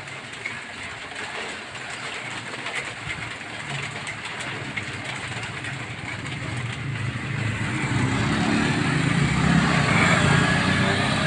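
Steady hiss of heavy rain, with a motor vehicle's engine growing louder through the second half as it approaches.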